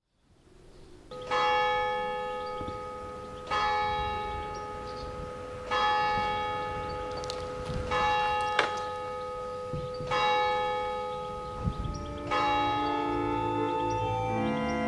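A single church bell tolling one note about every two seconds, each stroke ringing on into the next. Near the end, sustained electronic organ chords come in over it.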